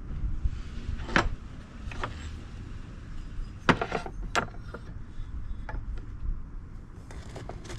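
About half a dozen sharp knocks and clinks as lead-sinker molds and tools are handled, most of them in the first half, over a low steady rumble.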